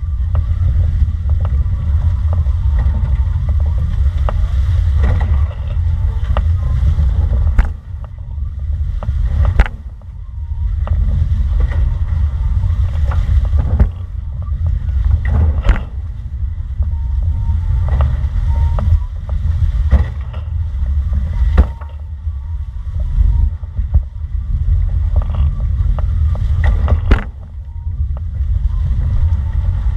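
Heavy wind buffeting on the boat-mounted camera's microphone while a Flying Phantom foiling catamaran sails fast, easing briefly a few times. Scattered sharp knocks come through, more than a dozen across the stretch.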